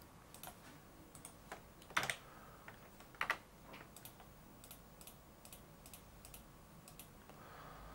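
Quiet, scattered clicks and taps of a computer keyboard and mouse being worked, with two louder clacks about two and three seconds in.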